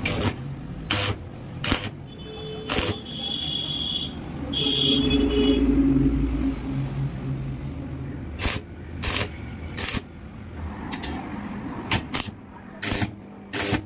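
Arc welder striking a series of short tack welds on steel square tubing: about eleven brief, sharp crackling bursts, a few in the first seconds and a quick run of them in the last five seconds. A low hum with a steady whine swells and fades in the middle.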